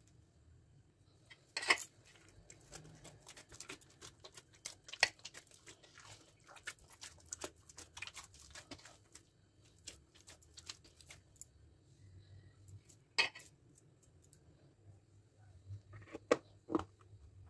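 Hands kneading soft wheat dough in a glass bowl lined with cling film: irregular crinkling and small sharp clicks. Near the end come a few sharp clicks as a plastic lid is handled on a food container.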